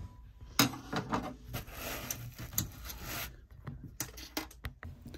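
Scattered small metallic clicks and scrapes of a screwdriver working at the spring retaining clip of a Vaillant boiler's low water pressure sensor.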